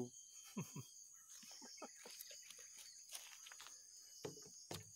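Insects chirring steadily and high-pitched in the background, with faint scattered taps and rustles and two brief low sounds near the end.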